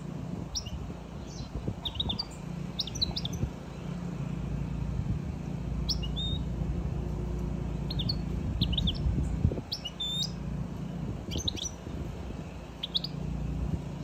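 European goldfinch giving short, high chirping calls in irregular clusters of a few notes, over a steady low hum.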